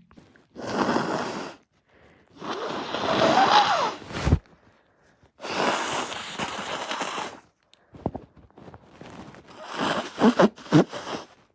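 A person with a congested, snotty nose blowing it hard three times, the second blow the longest and loudest with a honk in it, followed near the end by a run of short snorts and sniffs.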